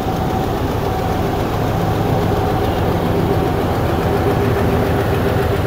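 Diesel locomotive engine running steadily as it pulls a stranded train through floodwater over the track.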